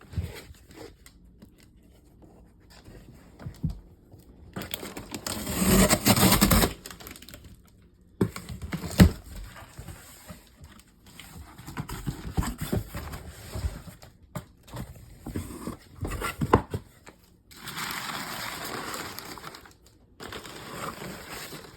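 Cardboard shipping box and paper packaging being handled and torn open: rustling, crinkling and tearing in uneven bursts, with scattered knocks.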